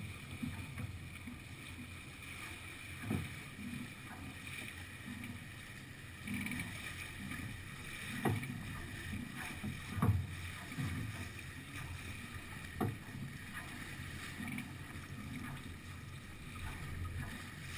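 Water rushing and splashing along the hull of a sailing yacht under way, with a few short, louder knocks or slaps scattered through.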